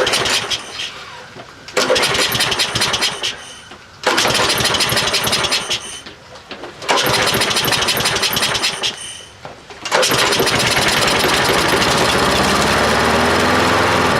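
Troy-Bilt walk-behind lawnmower engine being pull-started: four pulls of the recoil starter each give a short burst that dies away, and on the fifth pull, about ten seconds in, the engine catches and keeps running steadily. The owner puts its hard starting down to a dirty carburetor whose float needle valve hangs up and lets the bowl overflow.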